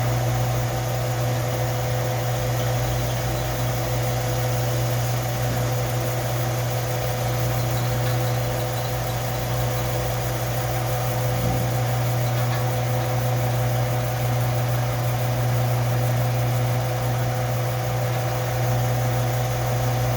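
Electric belt sander running steadily with a constant motor hum and a faint even hiss.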